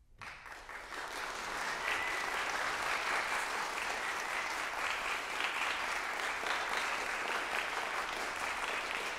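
Audience applauding, breaking out suddenly from silence and swelling within about a second to steady clapping.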